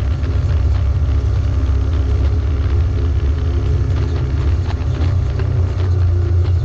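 Off-road vehicle engine running steadily under load while climbing a steep, rocky dirt trail, with a heavy low rumble and a few sharp clicks in the second half.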